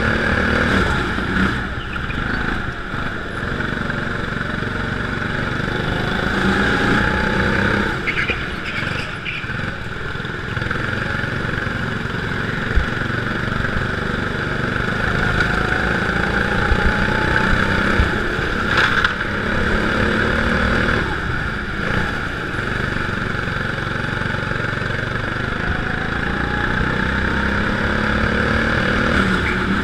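Rental go-kart's small petrol engine being driven on a lap. Its pitch rises several times as it accelerates out of corners and drops back between them, with a few sharp knocks from the kart.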